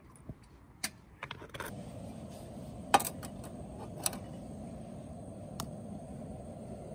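Metal camp cookware clinking: a kettle lid and a metal mug knocked and set down on the stove, a few light clicks and then one loud clink about three seconds in and another about a second later. A steady low rushing noise starts about a second and a half in and carries on.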